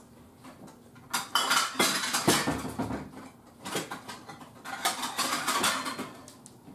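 Dishes and plates clattering and clinking as they are taken out and handled, in two spells of rattling with a short lull between.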